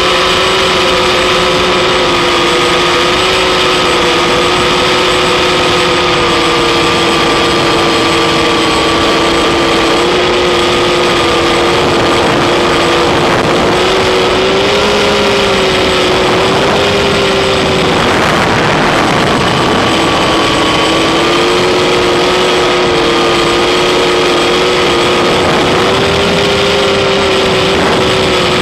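Octocopter's eight electric motors and propellers whining steadily in flight, the pitch rising and falling slightly with the throttle. A brief rush of wind noise about two-thirds of the way through.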